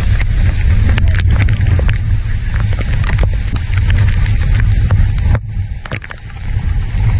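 Strong hurricane wind buffeting the microphone in a heavy low rumble, with scattered sharp ticks; it eases briefly about five and a half seconds in, then picks up again.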